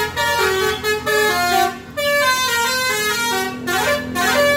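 Bus 'telolet' multi-trumpet air horn playing a tune of short held notes, stepping from pitch to pitch, with a brief break about two seconds in.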